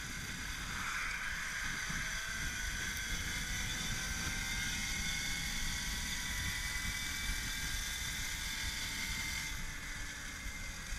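Axi 5345/14HD brushless electric motor of an electric-converted Babetta 215 moped whining at cruising speed, several steady whine tones drifting slowly in pitch. Wind buffets the helmet-level action-camera microphone with a low rumble underneath.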